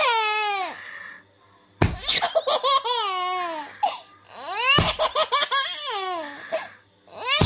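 A baby laughing in three bouts of high-pitched laughter, each sliding down in pitch, with short pauses between them.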